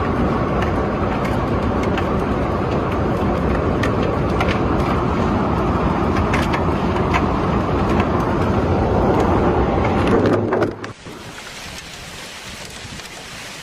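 Severe windstorm with hail: a loud, dense rush of wind and pelting hail with scattered sharp hits, dropping suddenly about eleven seconds in to a quieter, steady hiss of rain.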